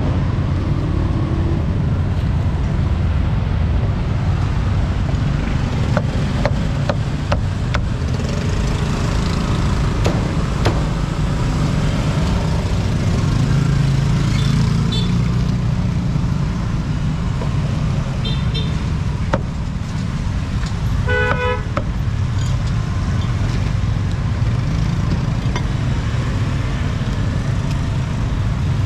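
Street traffic: a steady low rumble of passing vehicle engines, with a vehicle horn honking briefly about 21 seconds in and a couple of short higher beeps before it. A few sharp knocks sound around six to eight seconds in.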